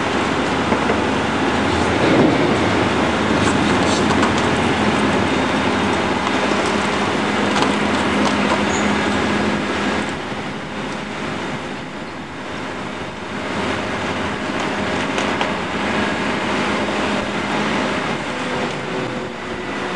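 Heavy diesel engine of the truck hauling the house on its multi-axle trailer, running steadily with a continuous rumbling hum. It eases slightly about halfway through.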